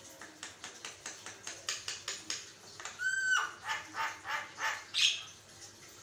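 Javan myna (jalak kebo) calling. First comes a quick run of short, noisy notes, about five a second. About three seconds in there is one clear whistled note, and then slower notes follow, ending on a louder one near the end.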